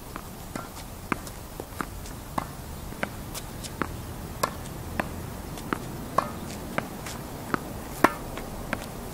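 Tennis ball rallied against a practice wall: a quick, even series of sharp pops as the ball comes off the racket strings, the wall and the hard court, about two a second, the loudest near the end.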